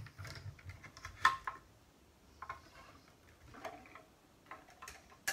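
Scattered light clicks and taps of die-cutting plates and craft tools being handled on a desk. A sharper click about a second in, then a few fainter ones.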